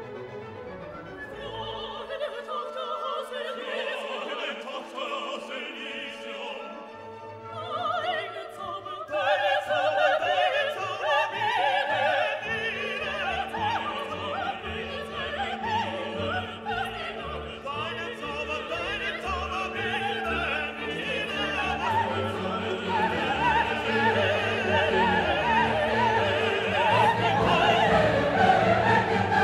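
Background classical music: an orchestra with operatic singing, growing louder about nine seconds in.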